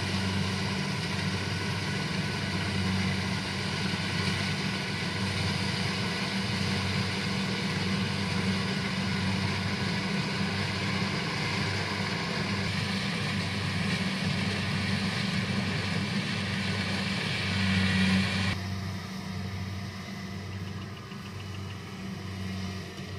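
Combine harvester running steadily in a rice field: a low engine hum under a wide machine noise. About eighteen seconds in it swells briefly, then the higher part of the noise falls away and it carries on quieter.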